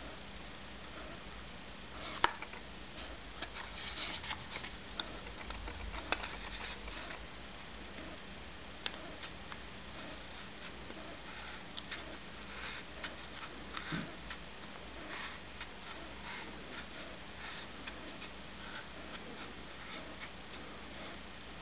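Scattered light clicks and taps of a Tyson balsa stripper and aluminum rib template worked on balsa sheet, with a short run of them a few seconds in. A steady high-pitched electronic whine sits under them throughout.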